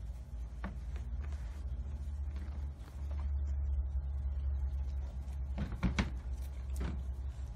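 Domestic cat purring, a low steady rumble, while it is stroked. A few sharp knocks and rustles come about six seconds in and again near seven, as the cat twists against the crate's cloth and wire.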